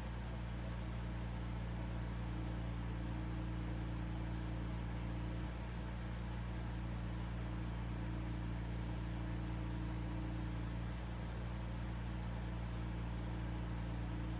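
A cool-mist humidifier running at full power: a steady electrical hum with a low whir and an even hiss, unchanging throughout.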